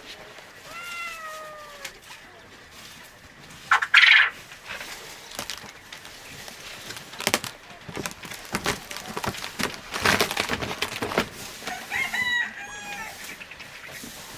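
Chickens calling: a drawn-out falling call about a second in, a loud harsh squawk near four seconds, and a run of short clucks near the end, with clicks and rustling in between.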